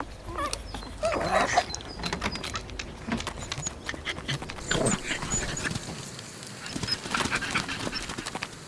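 Pug dogs' breathing and small vocal sounds, mixed with many small sharp clicks. There are louder patches about a second in and again around five seconds.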